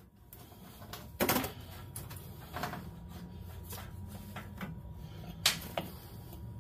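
Loose metal roller drive chain clinking in gloved hands as it is stretched along under the rear sprocket: a handful of irregular metallic clicks and rattles, the loudest a little over a second in.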